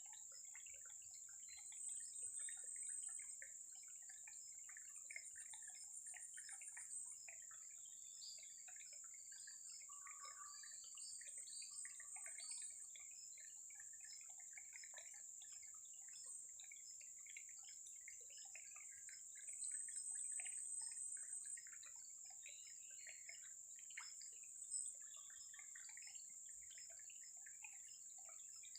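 Faint waterside ambience: scattered small drips and trickles of water over a steady high-pitched hum.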